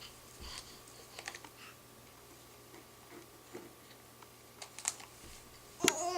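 A quiet room with a few faint scattered clicks and taps, then near the end a baby's short, high-pitched chirping vocal sound begins.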